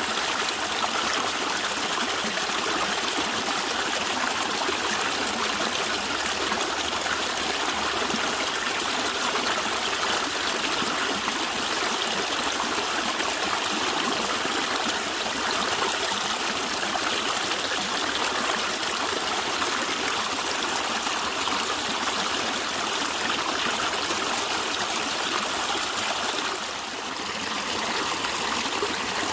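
A natural stream of running water, gurgling steadily, with a brief dip in loudness near the end.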